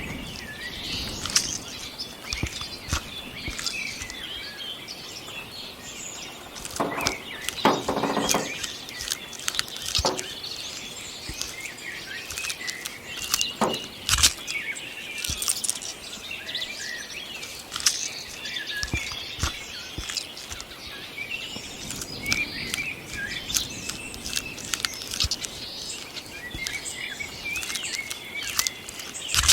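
Outdoor ambience of small birds chirping continuously, with scattered sharp clicks and rustles. A lower buzzy call lasts about a second, seven or eight seconds in, and a louder click comes about fourteen seconds in.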